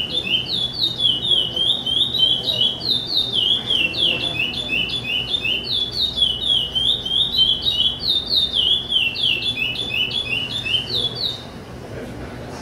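Caged chopi blackbird (pássaro-preto) singing its 'charrua' song: a fast, unbroken run of repeated downward-slurred whistled notes, several a second, that stops near the end.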